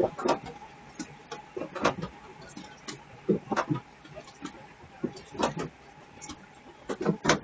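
A log flume ride, with its boat knocking and clunking along the channel in irregular, sharp knocks every second or so over a faint steady hum.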